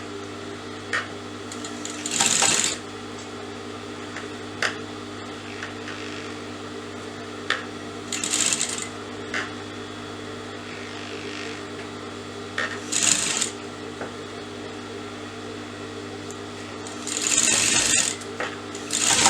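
Sewing machine stitching edging lace onto fabric in four short spurts, with scattered clicks between them over a steady hum.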